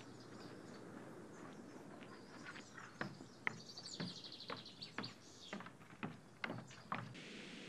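Footsteps climbing wooden stairs, a string of separate knocks about half a second apart, with a bird trilling briefly about four seconds in. Near the end the outdoor sound gives way to a steady hiss.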